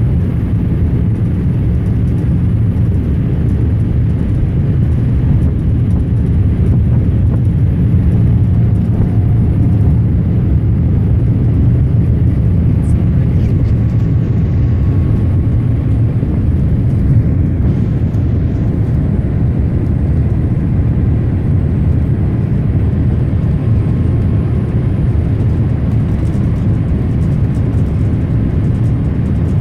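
Steady cabin noise inside a Boeing 787-8 Dreamliner on its descent to land, heard from a window seat beside its GE GEnx-1B engine: an even, deep rumble of engine and airflow.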